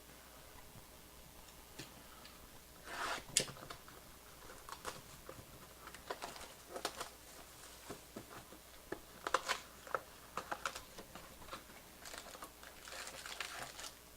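Sports card packs and cards being handled: scattered crinkling, rustling and light clicking of pack wrappers and cards, the loudest bursts about three seconds and nine and a half seconds in, with a denser run of crinkling near the end.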